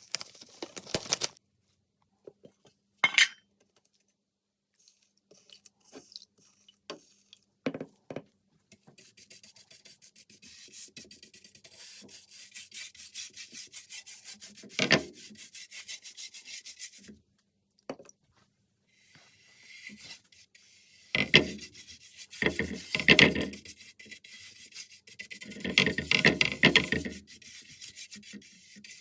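A cloth or pad rubbing oil into an oak surface in quick back-and-forth strokes, with a few louder knocks in between and short silent gaps.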